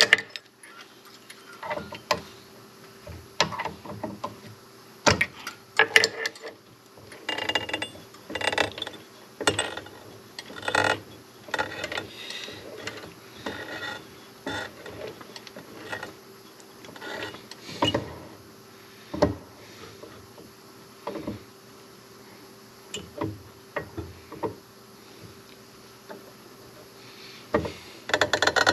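A drill bit boring into metal, with irregular clicks, ticks and short scrapes as it bites and chatters in the hole. A faint steady hum runs underneath.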